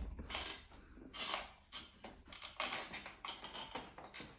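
Quiet, irregular clicks and taps of a manual wheelchair being rolled through a narrow doorway.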